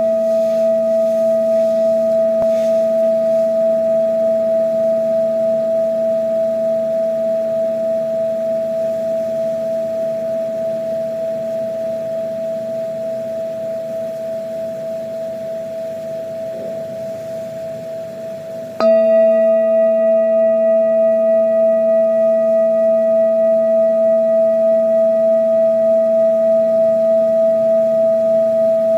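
Metal singing bowl ringing, several steady pure tones with a slow pulsing beat in the loudness. The ring fades gradually, then the bowl is struck again about two-thirds of the way through and rings back up to full strength.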